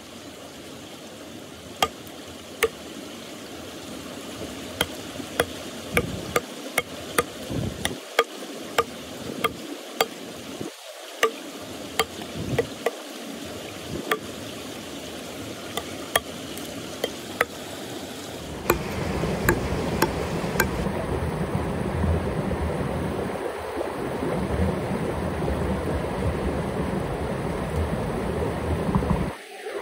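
Irregular sharp knocks, about one or two a second, from a saw-toothed blade chopping into a cut log, over a steady running mountain stream. About two-thirds through, the stream grows louder and the knocks stop soon after.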